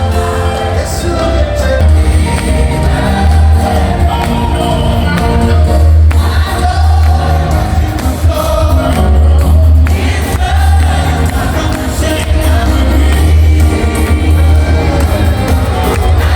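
Gospel worship music: a choir singing over a band, with heavy steady bass.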